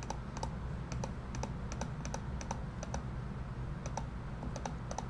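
Typing on a computer keyboard: irregular, quick key clicks.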